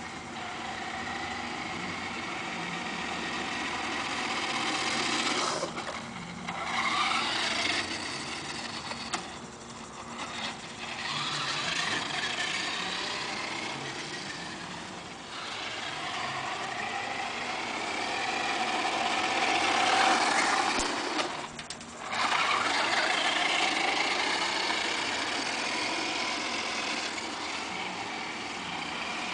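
Radio-controlled Hummer model's motor whining as it drives about, its pitch rising and falling with speed. The whine drops away briefly a few times, most sharply a little after 21 seconds in.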